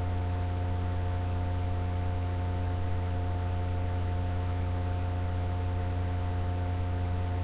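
Steady electrical mains hum with a ladder of overtones and a background hiss, unchanging throughout.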